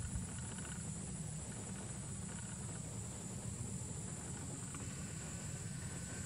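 Steady, high-pitched insect chirring over a low, even rumble.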